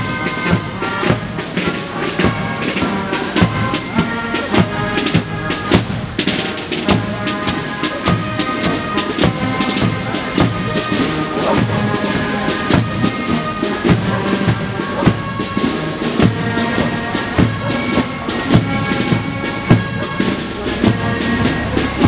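Marching band playing a march in the street, with bass drum and snare drum beating steadily under sustained melody notes.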